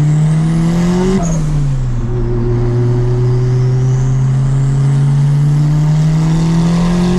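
Turbocharged D16Z6 four-cylinder of a 1993 Honda Civic pulling hard under boost. The revs climb, drop at an upshift about a second in, then climb steadily through the next gear until another shift near the end, with a faint high whine rising with the revs.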